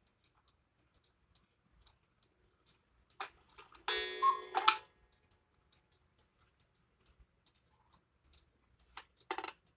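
German 8-day cuckoo clock ticking steadily, about two ticks a second. A louder pitched rattle lasting about a second and a half comes a little over three seconds in, and near the end there is brief handling noise at the clock's dial.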